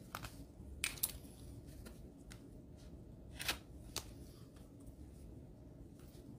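A few faint, scattered taps and brief scrapes of nail-stamping tools being handled on a table. The longest scrape comes about halfway through.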